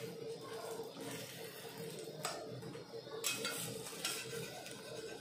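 Metal spatula stirring and scraping scrambled egg around an aluminium kadai, with several sharper scrapes and clinks of metal on metal, over a steady hum.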